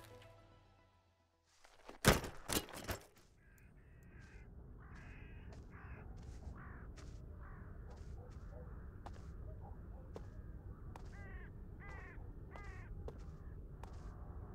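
A quick cluster of loud sharp knocks about two seconds in, then a steady low outdoor rumble with birds giving harsh, repeated calls.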